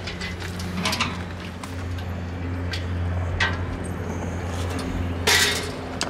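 Steady low machine hum with a few light clicks, and a brief loud rustle about five seconds in.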